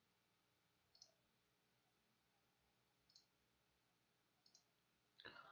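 Near silence, with three faint clicks spread out through it and a soft noise starting shortly before the end.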